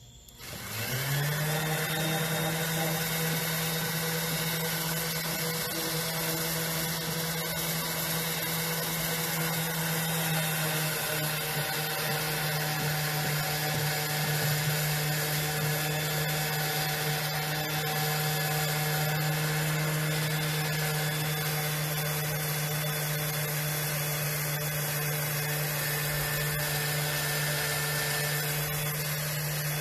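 Electric sander switched on about half a second in, spinning up with a rising whine, then running steadily with a constant hum and a gritty hiss as it sands a wooden bench.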